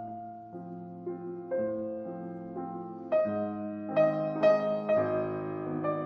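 Background music led by piano, with chords changing about every half second and the texture growing fuller and louder about three seconds in.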